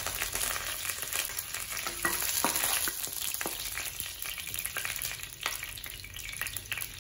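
Fresh curry leaves, mustard seeds and dried chillies sizzling and crackling in hot oil in a wok, with a wooden spatula stirring them.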